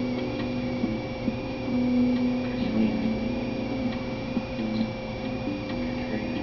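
Steady electrical hum, with a low droning tone that holds and steps between a few pitches.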